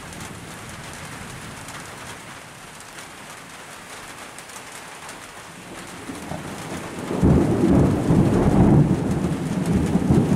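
Thunder before a rainstorm: a steady hiss, then about seven seconds in a loud, deep rumble of thunder sets in and keeps rolling.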